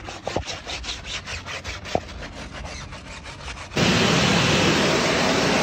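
Fast rhythmic rubbing strokes, about six a second. About four seconds in, a pressure-washer jet starts: a loud, steady hiss of water blasting against a car wheel and tyre.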